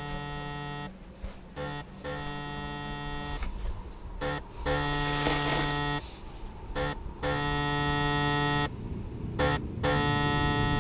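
A buzzy electronic tone at one steady pitch, sounding in on-off blocks of about a second or a second and a half, with a stretch of hiss around the middle.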